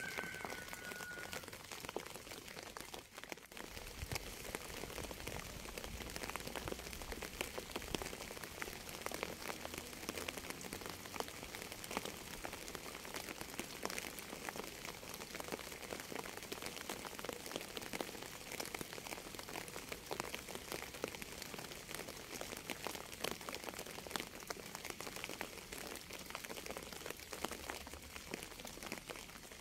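Steady rain falling, with many individual drops ticking sharply against the constant hiss.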